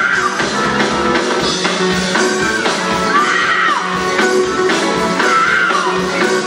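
Live gospel music: a woman sings lead into a microphone over a band with drums, her phrases rising and falling every couple of seconds.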